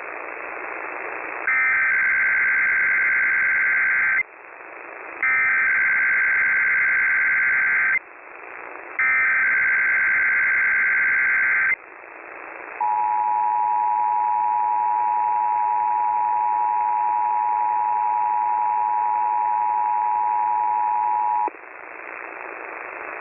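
Emergency Alert System test received over the radio: three bursts of the SAME digital header, a harsh data warble each about two and a half seconds long, then the steady two-tone EAS attention signal for about nine seconds. Radio hiss fills the gaps.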